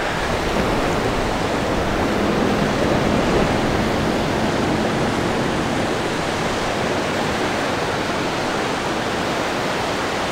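Steady rushing noise of ocean surf breaking and washing up the sand.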